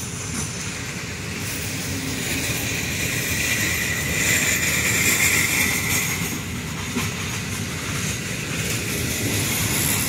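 A rake of PKP Intercity passenger coaches rolling slowly along the track during shunting, with a steady rumble of wheels on rail. A high squeal swells about halfway through and then fades.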